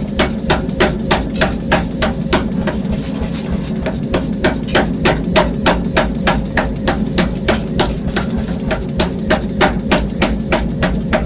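Rapid, regular hammer blows on iron in forging, about three to four strikes a second, over a steady low hum.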